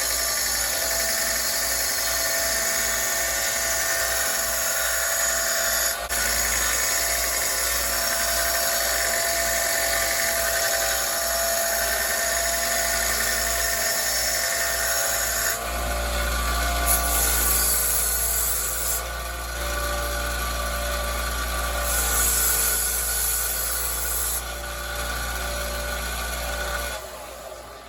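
Electric sander running steadily, grinding the steel rails of a chainsaw bar to dress them smooth. About halfway through the grinding turns harsher and hissier as the tool bears on the metal, then it stops shortly before the end.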